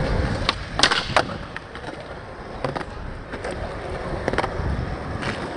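Skateboard rolling on concrete, its wheels rumbling steadily, with sharp wooden clacks of the board striking the ground. The loudest pair of clacks comes about a second in, and smaller knocks follow later.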